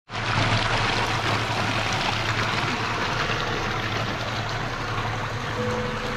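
Water gushing from a spout into a bath pool: a steady, even splashing rush.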